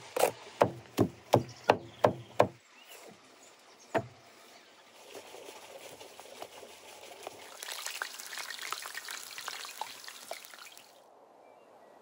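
A run of about seven sharp chopping knocks on a wooden cutting board, about three a second, over the first two and a half seconds, then one more knock about four seconds in. After that a soft crackling hiss with small ticks builds and cuts off suddenly near the end.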